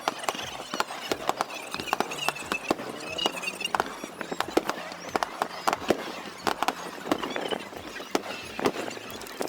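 Aerial fireworks popping and crackling: many irregular sharp cracks, with a faint wavering high whistle under them in the first half.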